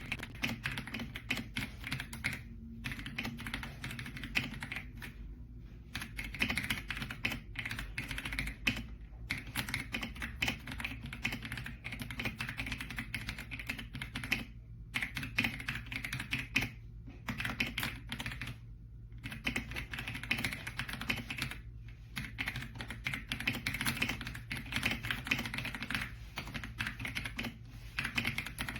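Continuous fast typing on an AULA F99 mechanical keyboard: a dense stream of key clacks, broken by a few short pauses.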